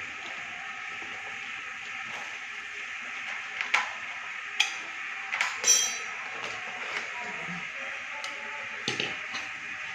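A few sharp metallic clinks and knocks over a steady hiss, one ringing briefly, as tools and metal parts are handled while working on a twin-tub washing machine's spin dryer.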